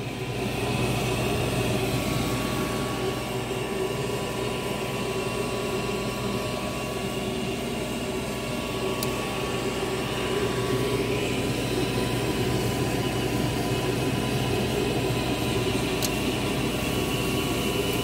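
Draft inducer motor of a Goodman high-efficiency gas furnace starting about half a second in and running with a steady hum: the pre-purge on a call for heat, before the ignition attempt. A couple of faint ticks are heard over it.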